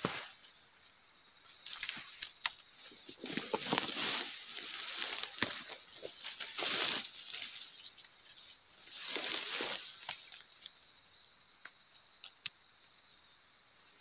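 Steady, high-pitched drone of an insect chorus, with grass swishing and rustling several times as someone pushes through tall grass, and a few small sharp clicks about two seconds in.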